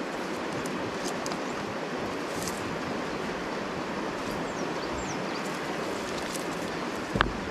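Steady rush of a river flowing over a stony bed. Near the end, a single sharp knock of a rock being set against another rock.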